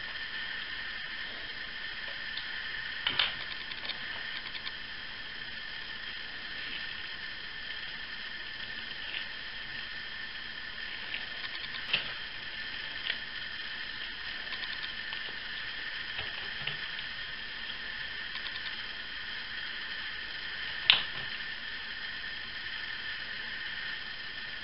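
Steady hiss with a faint high whine, broken by a few small sharp clicks.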